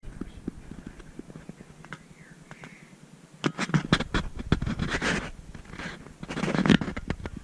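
Scratching and scraping with scattered clicks, growing louder in two rough stretches, one from about three and a half seconds in and one near the end.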